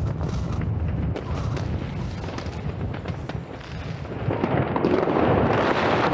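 Fireworks rockets and firecrackers going off all around, a continuous low rumble of distant bangs with scattered sharp cracks. About four seconds in, a louder, denser crackling sets in.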